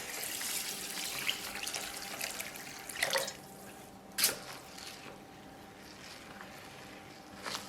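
Water being poured into a large bowl of glutinous rice, an even pouring noise that tapers off after about three seconds. Two short knocks follow, about three and four seconds in.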